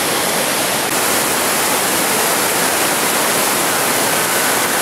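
Mountain waterfall cascading over boulders: a loud, steady rush of falling water.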